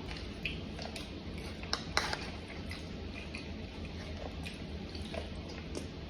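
A person chewing a mouthful of food, with scattered wet clicks and smacks of the mouth and a sharper click about two seconds in, over a faint steady low hum.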